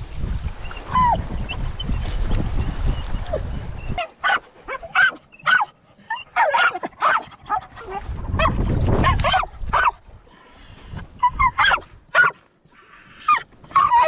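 Hunting dogs yelping and whining over and over, about two short calls a second. The first few seconds are mostly wind rumbling on the microphone, with a whine or two.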